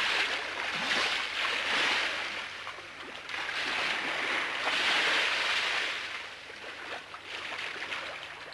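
Waves washing in on the shore, a rushing noise that swells and fades about three times.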